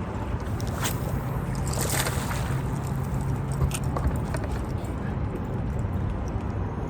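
Boat motor running with a steady low hum under water and wind noise, with a few faint short clicks.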